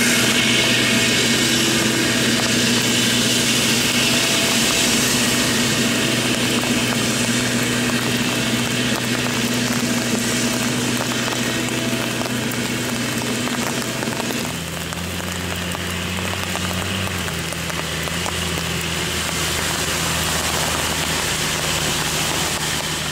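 Claas Jaguar 965 forage harvester running steadily under load while chopping maize: a steady engine drone under a strong hiss from the chopper and crop flow. About fourteen and a half seconds in, the sound switches to a lower-pitched engine drone with less hiss: a Fendt 926 tractor pulling a loaded silage trailer.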